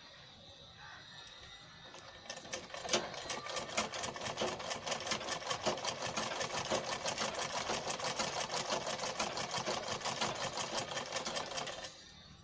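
Black domestic sewing machine running, its needle stitching a folded seam through mekhela cloth: a rapid, even clatter that starts about two seconds in and stops shortly before the end.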